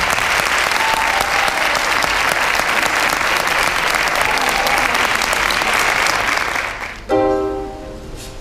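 Audience applauding, dying away around seven seconds in, as music with separate picked notes begins near the end.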